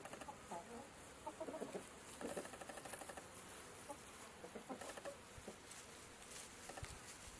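Small flock of chickens, a rooster and hens, clucking quietly in short scattered calls.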